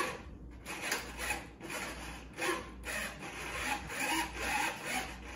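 Aileron servos of a 3D-printed RC jet whirring as the ailerons are driven back and forth, in a run of short repeated bursts.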